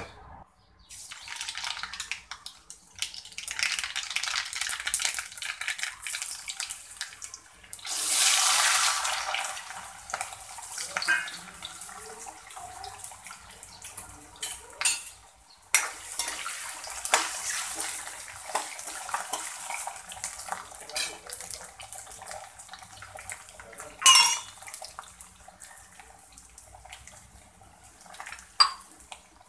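Hot oil sizzling in a metal kadhai as diced potatoes and peanuts fry. The sizzle surges loudest about eight seconds in, and a few sharp clinks of a utensil on the pan come later.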